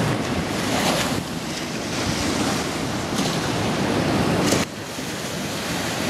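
Seawater washing and surging against shoreline rocks, with wind noise on the microphone; the wash swells and falls back twice.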